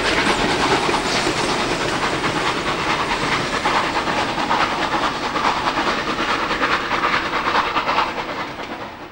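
A steam-hauled passenger train rolling past and away, the carriage wheels clacking over the rail joints, with the steam hiss of the two locomotives working ahead. The sound fades out near the end.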